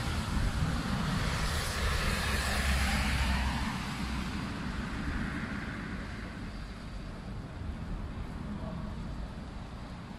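A car passing on a wet road: tyre hiss and low engine rumble swell over the first few seconds and then fade away, over a steady hiss of rain.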